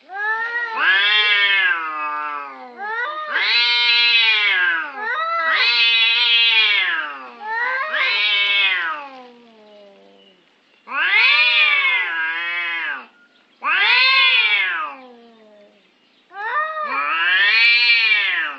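An animal's long, wailing calls, about seven of them, each rising and then falling in pitch, with short pauses between.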